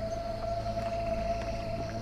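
Background music score: a single held mid-pitched tone over a low, steady drone.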